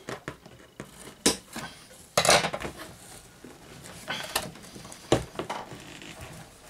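Scissors and hands working cardboard and plastic packaging to cut a plush toy free from its box: a few sharp clicks and knocks, the loudest a little over two seconds in, over soft handling rustle.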